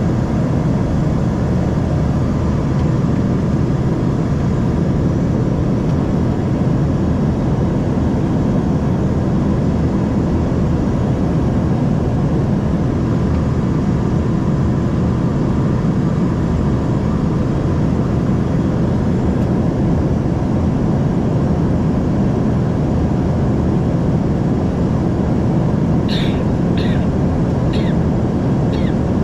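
Steady cabin noise of an Embraer ERJ 145 in its climb: the drone of its rear-mounted Rolls-Royce AE 3007 turbofans and the airflow, with a faint steady tone. Near the end there are four brief higher-pitched ticks.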